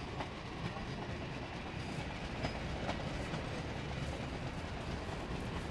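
Steam-hauled train rolling along the track: a steady rumble with scattered, irregular clicks of wheels over rail joints.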